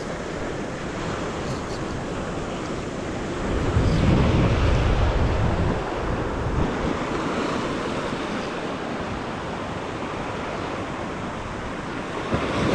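Sea waves breaking and washing over shore rocks, with wind buffeting the microphone; one wave surges louder with a low rumble about four seconds in, lasting around two seconds.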